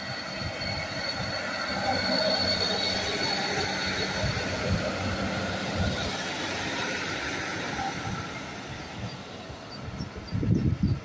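Class 156 Sprinter diesel multiple unit running along the platform road as it moves off, its underfloor diesel engines rumbling with a thin high whine that fades after about six seconds, wheels running on the rails. Near the end wind buffets the microphone.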